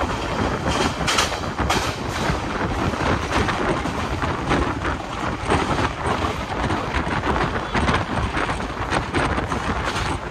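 Passenger train running: a steady rumble of wheels and carriage with frequent irregular clattering knocks.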